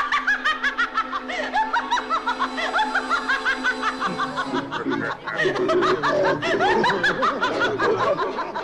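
Many cartoon voices laughing together over music, a chorus of overlapping cackles and chuckles; deeper laughs pile in about five seconds in.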